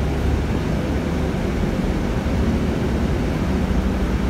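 Steady low rumble of engine and road noise heard inside a moving bus.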